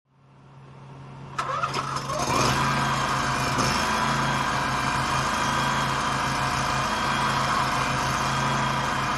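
An engine starts up, comes up to speed over the first two or three seconds, then runs steadily.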